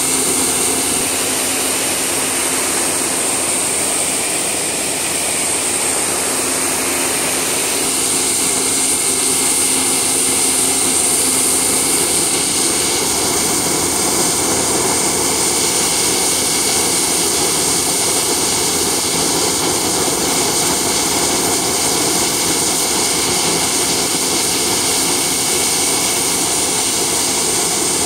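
Dolphin high-pressure cleaner running, its pump driving a jet of water out of the lance onto a concrete floor: a loud, steady hiss of spray over the machine's drone, a little louder from about eight seconds in.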